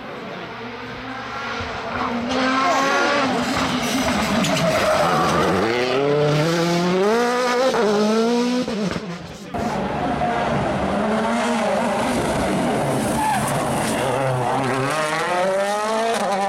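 Rally car engines running hard, revving up and dropping back through gear changes and lifts, with tyres squealing and skidding on the stage. The sound drops out briefly about nine and a half seconds in.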